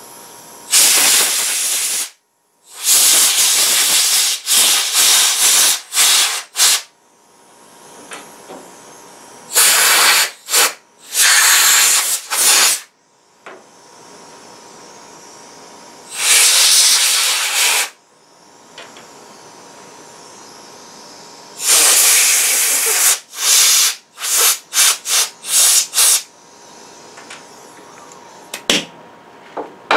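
Compressed air from a shop air blow gun blasting through a lawnmower's plastic carburetor cartridge and jets to clear them of debris: a series of loud hissing blasts, some held a second or two, others quick short puffs.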